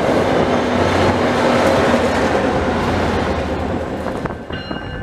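A train passing close by: a loud, steady rumble and rattle of wheels on rail that fades about four seconds in as it clears. Near the end, high ringing tones begin, on and off.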